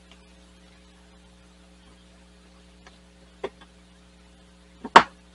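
Small clicks and knocks of hands working on the plastic wheel-well liner and fog light area of a 2005 Ford Escape, with a sharp snap about five seconds in, over a steady low electrical hum.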